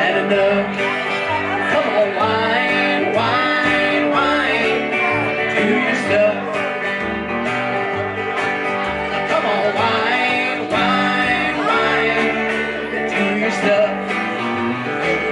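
Live country band playing an instrumental break: a Telecaster-style electric guitar playing a lead with many bent notes over an upright bass and a strummed acoustic guitar.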